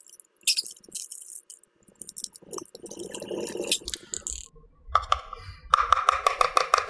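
Powdered sugar being measured into a bowl: small clicks and taps of a measuring cup and utensils, with a plastic bag of sugar rustling and crinkling, loudest near the end.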